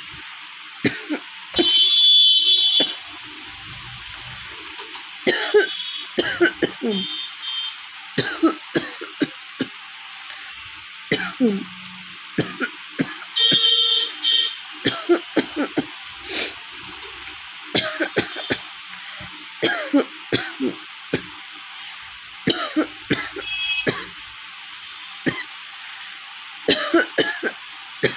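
A woman coughing over and over in short, hard fits, her throat raw and hoarse from a cold. Twice, about two seconds in and again near the middle, a high-pitched tone sounds for about a second.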